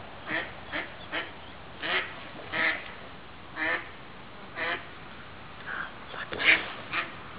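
A mother duck quacking repeatedly: about a dozen short quacks at uneven spacing, the loudest near the end.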